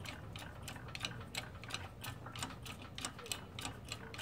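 Central Machinery hydraulic bottle jack in a shop press being pumped by its handle: a fast, even run of ticks, about five a second, as the press slowly pushes a part into a GY6 scooter crankcase.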